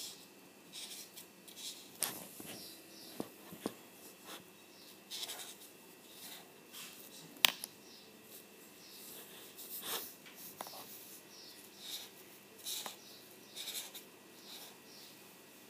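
Paint marker drawing quick short strokes on paper, each a brief scratch, with a few sharp clicks among them, the loudest about seven and a half seconds in.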